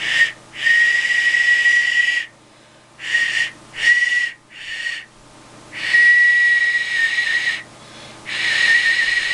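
Hand-moulded clay duck whistle blown about seven times in short and longer puffs, each a steady high airy note with a lot of breath hiss. The maker judges the voicing not quite good quality.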